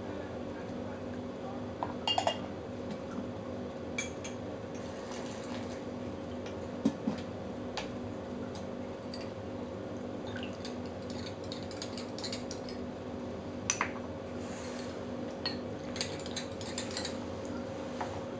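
Small porcelain tea cups, lids and pitchers clinking lightly against each other and the table as tea ware is handled, with short spells of tea being poured. A steady low hum runs underneath.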